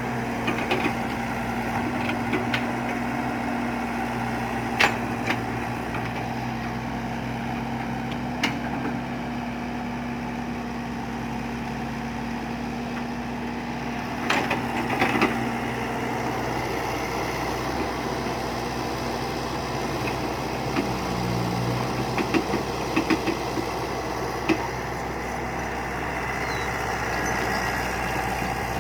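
Excavator engine running steadily, with occasional sharp knocks and clanks.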